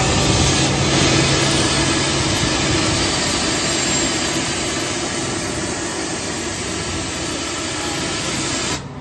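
Mobile diesel-driven screw air compressor running under load: a loud, steady rushing hiss over a low engine hum. Near the end the hiss cuts off suddenly, leaving a quieter running sound.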